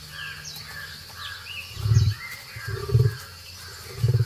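Wild birds chirping in short falling notes, broken by three loud, short, low booming sounds about a second apart.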